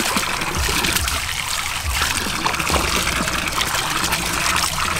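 Wet chives handled in a stainless steel bowl: a steady watery trickling and dripping with many small crackles of leaves rubbing.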